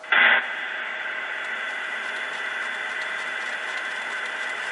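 Sound effects from the electronic sound unit of a model steam locomotive display, played through a small speaker. A short loud blast comes just after the start, then a steady hiss with faint high tones and light ticking.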